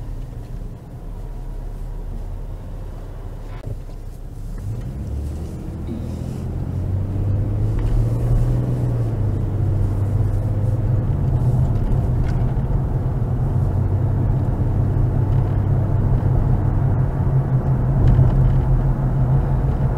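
Car engine and road noise heard from inside the cabin, a steady low rumble that grows louder about six to eight seconds in as the car pulls away from an intersection and picks up speed.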